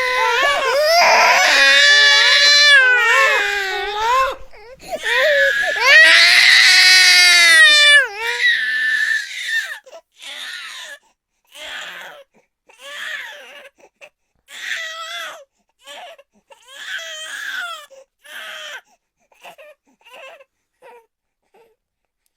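Cartoon character crying sound effect: loud, high-pitched wailing for about eight seconds, then a string of short sobs that grow fainter and die away near the end.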